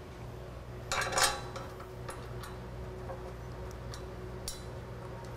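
Light metallic clinks of bolts and small metal parts handled against a motorcycle frame: a short clatter about a second in, then a few scattered single ticks.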